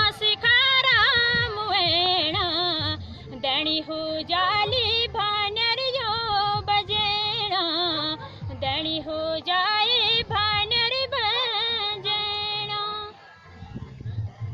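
A high voice singing a Pahadi mountain folk melody, the pitch wavering and sliding in long ornamented phrases; the singing stops about a second before the end.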